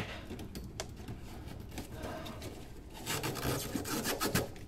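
Hand tools clicking and scraping on metal as the fuel filler neck's bracket is fastened to the car's underbody, with a quick run of sharp clicks about three seconds in.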